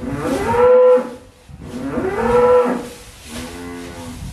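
Dutch Belted (Lakenvelder) cattle mooing: three long calls, the third quieter and lower than the first two.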